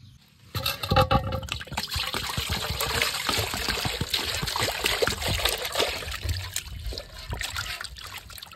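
Water splashing and sloshing in a large aluminium basin as hands scrub and rinse a whole scored fish. It starts suddenly about half a second in.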